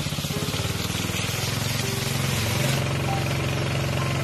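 Small engine running steadily at a fast, even chug.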